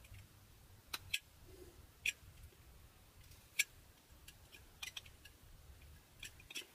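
A narrow whittling knife making small cuts in butternut wood: about eight short, crisp snicks at irregular intervals as fine chips are sliced from the carving.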